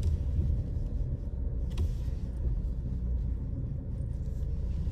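Steady low rumble of a car driving, road and engine noise, with one brief click a little under two seconds in.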